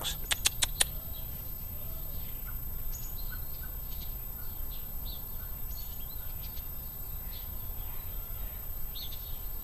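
Scattered faint chirps of small birds over a steady low outdoor rumble, with a few sharp clicks in the first second.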